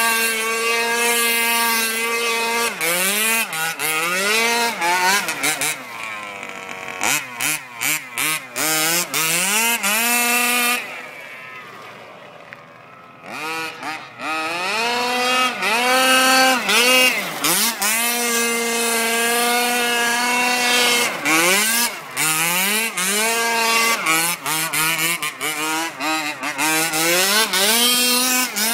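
The 26cc two-stroke petrol engine of an HPI Baja 5T RC car, revving up and down in quick bursts on the throttle while drifting. It drops away for a couple of seconds near the middle, then revs hard again.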